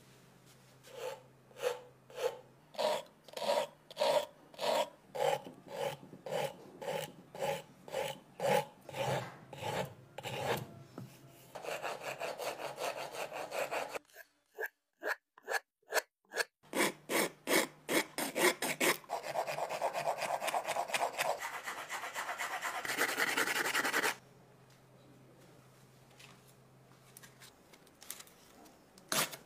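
A wooden airsoft gun part being worked by hand with a file and sandpaper. For about ten seconds there are even back-and-forth rasping strokes, about two a second. Then comes faster, continuous rubbing that stops about two-thirds of the way in.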